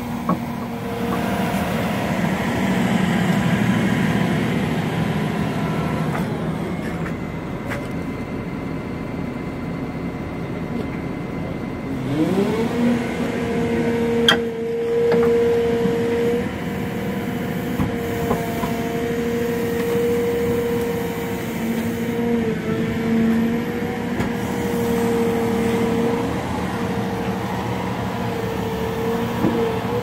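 Cat M318F wheeled excavator's diesel engine and hydraulics running steadily. About twelve seconds in, a whine rises in pitch and then holds steady, and a single sharp click comes a couple of seconds later.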